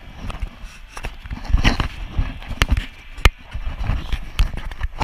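Handling noise on an action camera: irregular knocks, clicks and scraping rubs against the camera body and microphone as it is held and turned over by hand.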